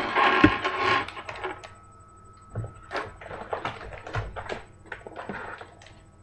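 Clear plastic bags crinkling as they are handled, loudest in the first second, then scattered light clicks and clinks of small metal pieces in the bags being set down on a table.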